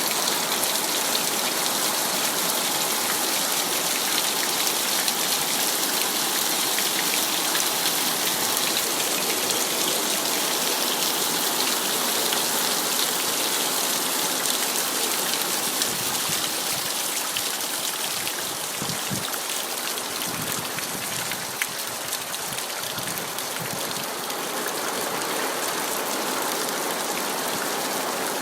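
Steady heavy rain falling and pattering on surfaces, a dense even hiss with countless fine drop ticks.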